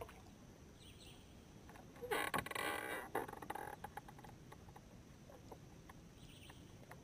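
Faint swamp ambience: a steady insect drone with a few bird chirps, broken about two seconds in by a brief rustling clatter lasting about a second and a half.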